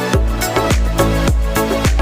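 Background dance music with a steady beat, its deep bass hits falling in pitch, a little under two beats a second.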